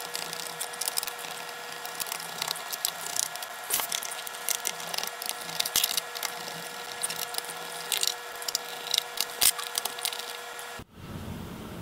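Small Phillips screwdriver backing the screws out of a laptop's plastic bottom case: irregular small clicks and scrapes of the bit in the screw heads, over a steady faint hum.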